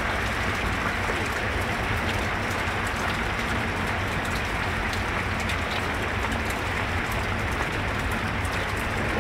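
Heavy rain pouring steadily onto a flooded street, a dense, even hiss with faint scattered ticks of drops.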